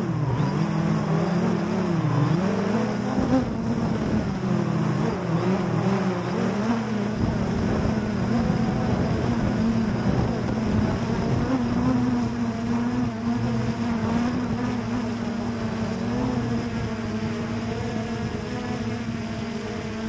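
3DR Solo quadcopter's propellers and motors buzzing in flight, heard up close from a camera taped to its frame. The pitch wavers in the first few seconds as the motors adjust, then holds steadier as the drone comes down toward the ground.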